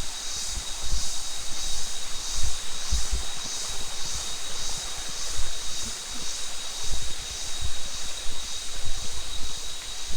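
Really loud ringing of forest cicadas: a steady high whine with a pulsing buzz above it, about two pulses a second. Irregular low thuds and rumbles come and go underneath.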